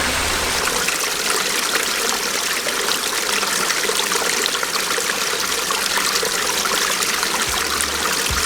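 Mountain valley stream flowing steadily, a constant rush of water.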